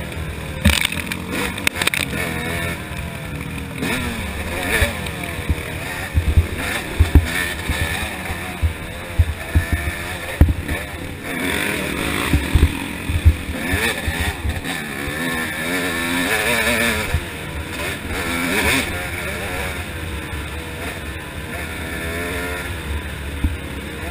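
Yamaha YZ250 single-cylinder two-stroke dirt bike engine ridden hard, its revs rising and falling over and over as the throttle is worked, with scattered sharp knocks.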